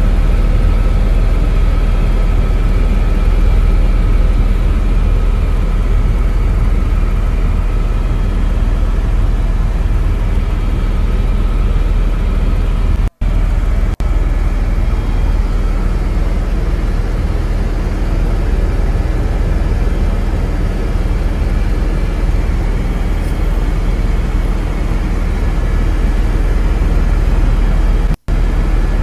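Helicopter engine and rotor noise, a loud steady rumble with a high whine running through it. It cuts out for an instant twice, about thirteen seconds in and near the end.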